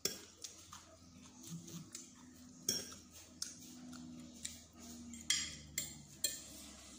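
Metal spoon and fork clinking and scraping against a small ceramic sauce bowl and a dinner plate, in scattered separate clicks.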